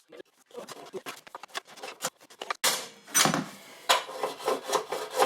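Irregular clicks and knocks of a piece of timber being handled and set into a chop saw, wood bumping against the saw's metal fence and base, with a few louder knocks around the middle.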